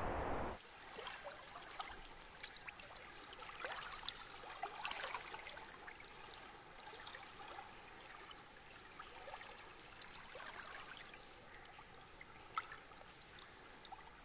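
Water dripping and trickling inside a lava cave: faint, irregular single drops, a few a second, some sharper than others. A louder rushing noise cuts off about half a second in, just before the drips begin.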